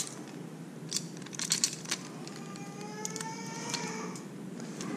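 Light clicks and rattles of a Megabass I-Slide 185, a jointed hard-bodied swimbait, and its treble hooks as it is turned over in the hands, busiest about a second in. From about two seconds in a faint steady hum of several pitches sits underneath.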